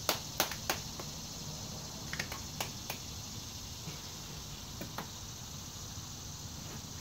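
Scattered sharp clicks of moist-snuff tins and fingers being handled while pinching and packing dip, over a steady background hiss. A cluster of three clicks comes in the first second, more around two to three seconds in, and a couple near five seconds.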